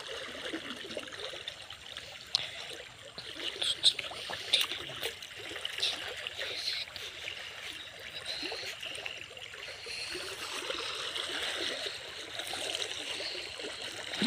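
Muddy stream water rushing and churning around a person moving about underwater in it, with a few short sharp splashes between about two and six seconds in.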